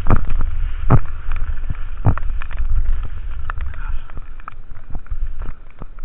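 Wind rushing over the microphone of a camera worn by a skier moving downhill, a low rumble with a hiss above it. Sharp knocks cut in, strongest near the start and about one and two seconds in, smaller ones after. The rumble eases after about four seconds.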